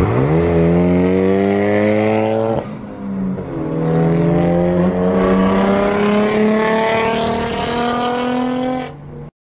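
Car engine under hard acceleration at highway speed, its pitch climbing. It breaks off with a quick gear change about two and a half seconds in, then climbs again, and cuts off suddenly near the end.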